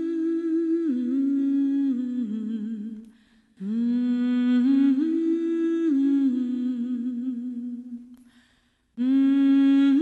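Soundtrack music: a wordless solo voice humming a slow melody in long held notes, sliding up into each phrase and wavering at the phrase ends, with two short breath pauses, about three and eight and a half seconds in.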